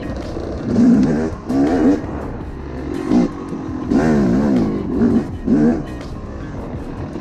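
2007 Yamaha YZ250 two-stroke dirt bike engine under way on a trail. It revs up and down in about six short throttle bursts over a steadier lower running note.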